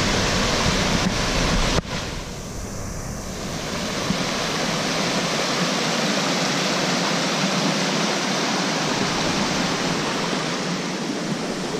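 Small rocky waterfall cascading down a stream bed: a steady rush of falling water. A single brief knock about two seconds in.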